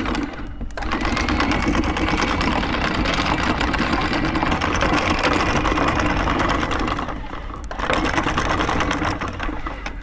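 Lofrans X2 vertical electric anchor windlass running under power, its motor and gearbox whining steadily as the chain feeds over the gypsy. The motor stops briefly under a second in and again about seven seconds in before restarting.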